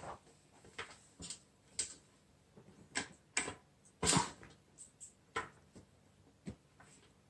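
Screwdriver tightening the screw of a hose clamp on a rubber gas hose at a portable gas heater's inlet: about ten small clicks and scrapes at irregular intervals.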